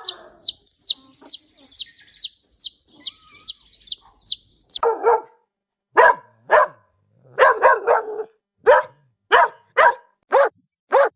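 A bird gives short, high, falling chirps about three times a second, then a dog barks about ten times, singly and in quick pairs.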